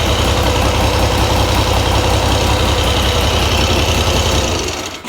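1969 Triumph Trident's three-cylinder engine idling steadily, then stopping near the end. After a carburettor tune-up the idle still hangs up a little, and the mechanic thinks the carbs need rebuild kits.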